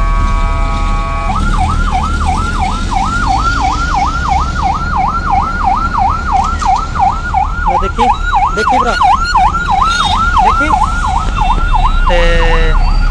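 Electronic siren in a fast yelp, its pitch falling and rising about four times a second without a break, over a steady low engine drone. A vehicle horn blares briefly at the start and again about a second before the end.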